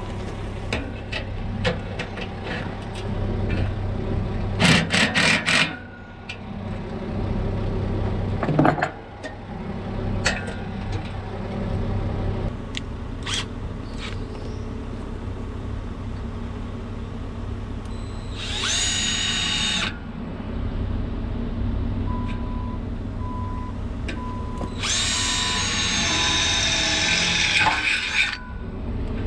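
Cordless drill drilling into a trailer's metal side rail, running in two bursts of a pitched whine, one about 18 seconds in and a longer one near the end. Before that come scattered clicks and knocks of hand tools being handled.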